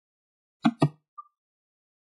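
Dead silence in a pause of a synthesized reading voice, broken about two-thirds of a second in by two very short voice-like blips in quick succession.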